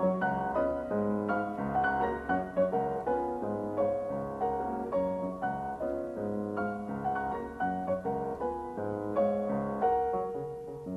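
Piano music: a steady flow of notes over a repeating low bass line.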